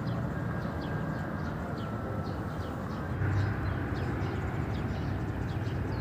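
Outdoor ambience: a steady low rumble, with faint bird chirps now and then.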